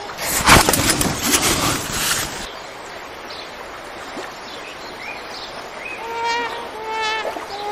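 A loud burst of rushing noise about half a second in, lasting about two seconds. Then a quiet outdoor ambience with birds chirping, and a run of clear, repeated bird calls near the end.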